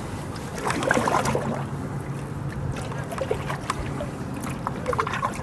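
Canoe paddling: a paddle swishing through the water about a second in, with scattered light knocks, over a steady low hum.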